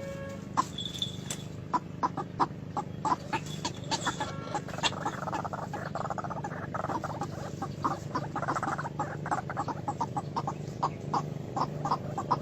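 White-breasted waterhen (ruak-ruak) calling: a rapid series of short, sharp notes, several a second, coming thicker from about halfway through, over a steady low hum.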